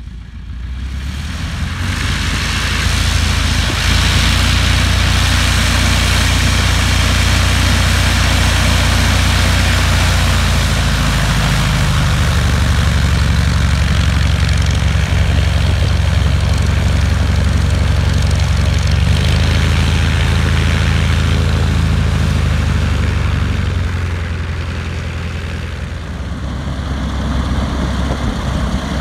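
Single-engine light aircraft's propeller engine running at taxi power as the plane taxis over grass, growing louder over the first few seconds, then steady, with a brief drop about 25 seconds in before it picks up again.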